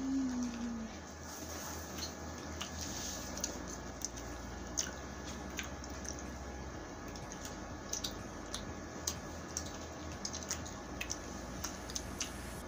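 Close-miked eating: wet chewing with irregular sharp lip and tongue clicks and smacks as rice and fried chicken are eaten, with a short hummed "mm" at the very start.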